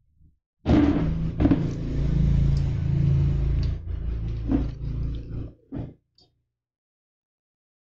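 Handling noise on the microphone as the setup is moved close to it: a low rumble with sharp knocks about three-quarters of a second and a second and a half in. It dies away after about five seconds, followed by a couple of short bumps.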